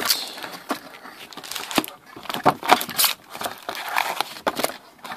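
Foil trading-card packs crinkling and rustling as they are pulled out of a cardboard hobby box and stacked on a table, with irregular light taps and clicks.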